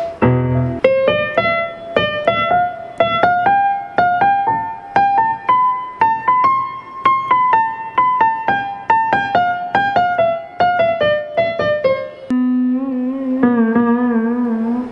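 Casio CT-X900 electronic keyboard played by hand: a simple melody of single struck notes, a few a second, climbing and then falling back. About twelve seconds in it gives way to long held notes that waver in pitch.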